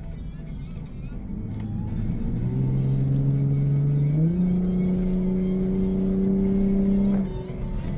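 Lexus IS350 F-Sport's V6 through a Borla Type-S axle-back exhaust, heard from inside the cabin as the car accelerates. The engine note grows louder and climbs, steps up sharply about four seconds in, holds steady, then drops away near the end as the throttle is lifted.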